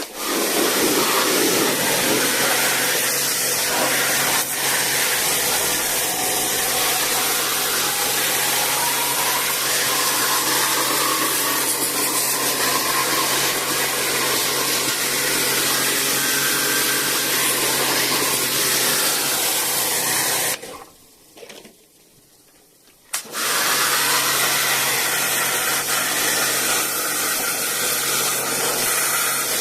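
Electric high-pressure washer running, a steady motor hum under a loud hiss of water spray. It stops about twenty seconds in and starts again a couple of seconds later.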